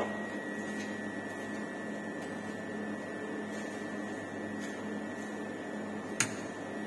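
Cryostat's refrigeration unit running with a steady hum and a thin, constant high whine, with one sharp click near the end.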